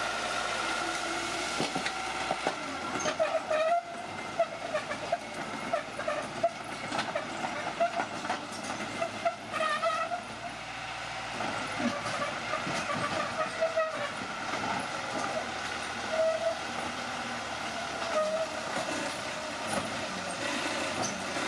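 Bulldozer's steel crawler tracks squealing and clanking as it moves, with short repeated squeals over a running engine.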